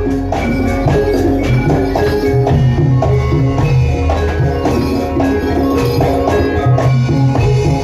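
Javanese gamelan music for a jaran kepang dance: bronze metallophones and gongs ring out quick struck notes over a steady low drum beat.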